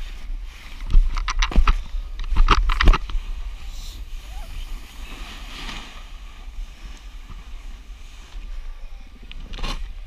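Snowboard scraping over snow in a few short, loud strokes between about one and three seconds in, over wind rumbling on the microphone.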